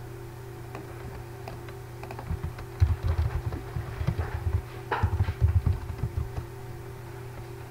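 Typing on a computer keyboard in two quick runs of keystrokes, about two seconds in and again about five seconds in, over a low steady hum.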